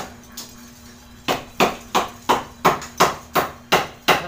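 Hammer blows in a quick, even run, about three a second, after a short pause about a second in.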